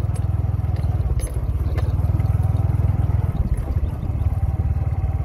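Small motorbike engine running steadily under way on a rough dirt field track, with a couple of light knocks from the bumps about a second in.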